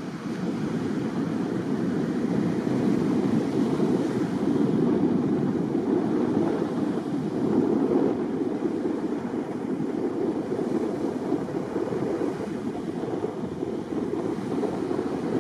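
Wind blowing over the microphone mixed with breaking surf: a steady rushing noise that swells a little and eases without any clear rhythm.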